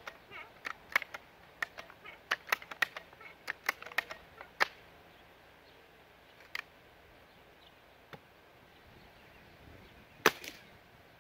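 A quick run of sharp clicks and taps, then a single short, quiet crack about ten seconds in: a Seneca Dragonfly Mk2 .22 pump-up air rifle firing on 10 pumps through a Donnie FL moderator, "mouse fart quiet".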